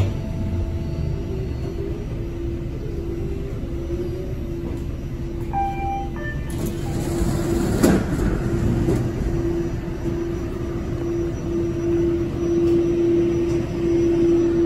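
NFTA Metro Rail light-rail train in an underground station, running with a steady electric hum and rumble as it pulls in. A short chime of a few tones comes about six seconds in, then a hiss and a sharp knock near eight seconds.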